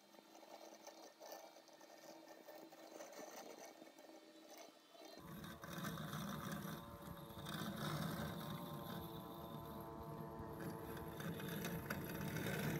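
Husqvarna Automower robotic lawn mower running on grass with a steady electric motor whir, faint at first and clearly louder and closer from about five seconds in.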